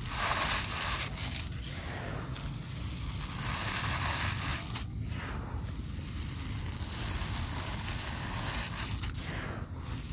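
Gritty dry cement pieces crumbling and grinding: a continuous crackling grit with a few sharper cracks as chunks break.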